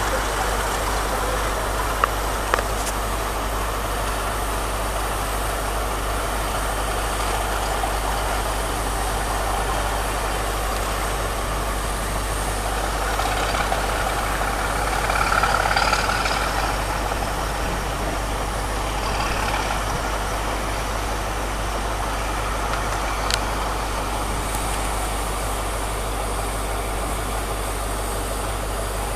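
Diesel train engine idling steadily with a constant low hum, swelling a little about halfway through, with a few sharp clicks.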